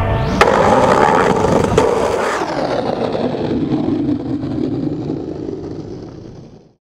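Skateboard hitting down with a sharp clack about half a second in and another knock near two seconds, then the wheels rolling and scraping on pavement, fading out to nothing near the end.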